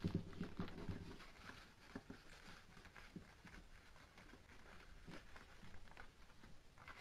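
Sheet of paper rustling and crinkling as it is folded and creased by hand, a scatter of small crackles. Louder handling noise in about the first second, then fainter.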